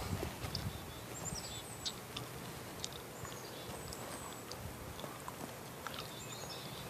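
Faint outdoor background with small birds chirping: short high calls, some gliding slightly in pitch, scattered throughout, with a few faint clicks.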